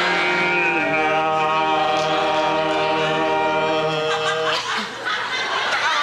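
Male voices singing in long held notes, breaking off about four and a half seconds in, followed by audience laughter.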